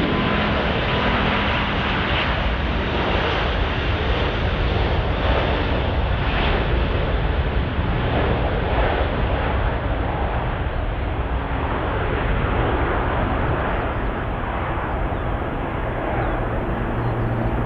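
Jet airliner engines: a loud, steady rush of engine noise that loses its high hiss over the last several seconds as the aircraft moves away.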